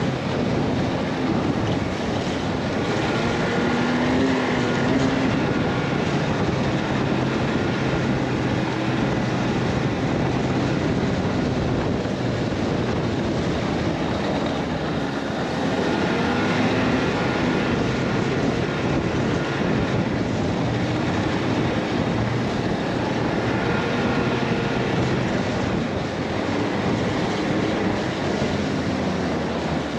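A vehicle's engine running steadily at cruising speed, its pitch drifting slightly up and down, under a constant rushing noise.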